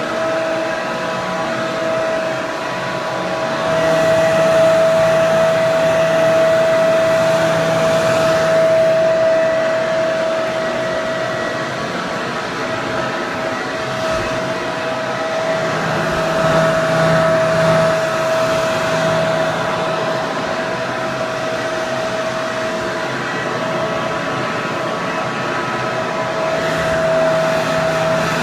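Hair dryer running continuously: a steady rush of blown air with a constant whine from the motor, swelling slightly in loudness a few seconds in.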